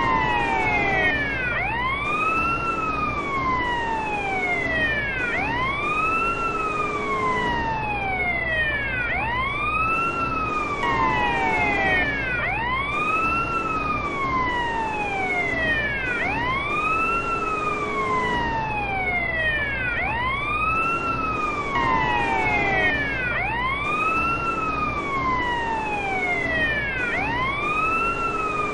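Bosnian police car siren sounding a repeating wail. Each cycle rises quickly and falls slowly, about one every two seconds, over a steady low hum.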